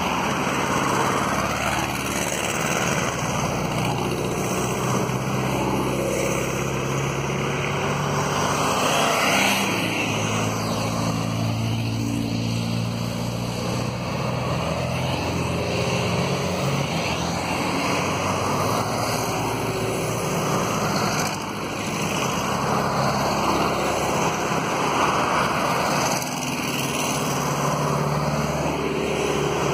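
Classic Volkswagen split-screen Type 2 vans passing one after another, their air-cooled flat-four engines running with a pitch that shifts as each goes by, along with tyre noise and the odd modern car or van.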